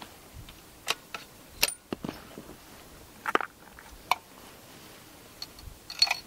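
Scattered sharp clicks and clacks of a long-range rifle being handled by the prone shooter, about eight separate clicks with the loudest near the end; no shot is fired.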